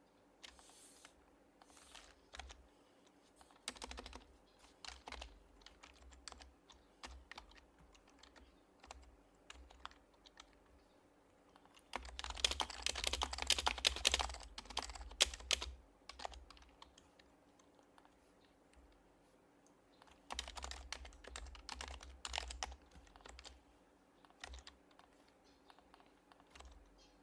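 Typing on an HHKB Professional Hybrid Type-S keyboard with its silenced Topre switches: scattered single keystrokes, then two quick runs of fast typing, the first and louder about halfway through, the second a few seconds later.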